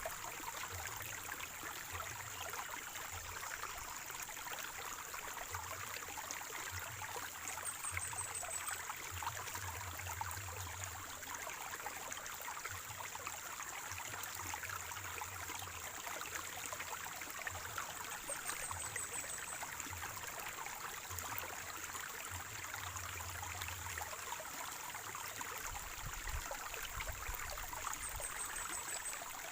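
Water of a small spring-fed stream gurgling and trickling steadily. A short, high, falling chirp sounds three times, about ten seconds apart.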